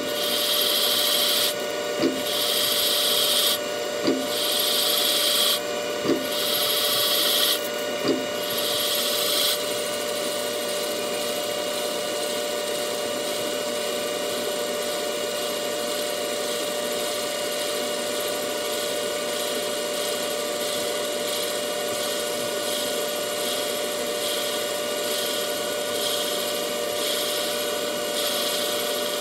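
CNC lathe boring out a cast aluminium turbo compressor housing, with the cutting tool working under flood coolant. For about the first ten seconds the cutting hiss comes and goes in passes roughly every two seconds, each with a short click. After that the lathe runs on with a steady hum.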